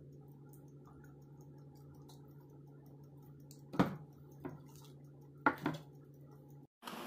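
A steady low hum, broken by a few short, sharp sounds: one about four seconds in and a close pair about a second and a half later.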